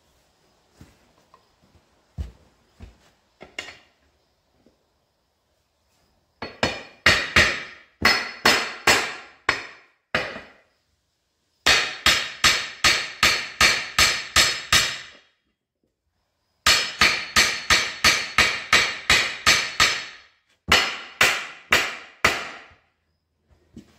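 Hammer blows on a steel split-rim truck wheel, ringing metallic strikes about three a second in four runs of a few seconds each with short pauses between, after a few light knocks at the start. The blows are driving the halves of a Firestone RH-5 two-piece wheel back together over a patched tube.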